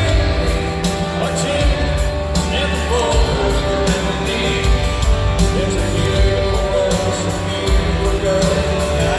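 Live country-rock band playing with a steady drumbeat and singing over it.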